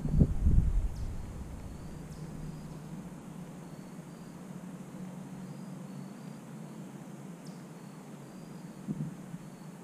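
Outdoor ambience of insects chirping in short, evenly spaced high pulses over a steady low hum, with a brief low rumble in the first second.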